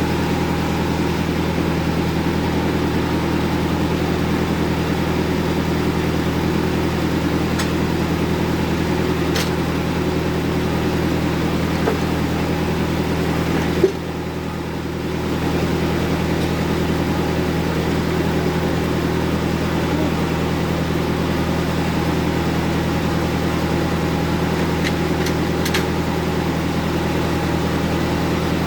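Bandsaw mill running steadily with an even mechanical hum. About halfway through there is a single sharp knock, after which the sound drops briefly and comes back up.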